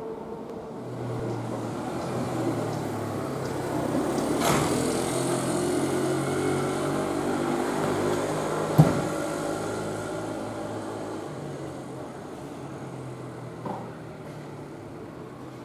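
Electric commuter train passing over a level crossing on the Kintetsu Nara Line. Its rumble builds, peaks in the middle with a sharp wheel knock over a rail joint, then fades as the train moves away.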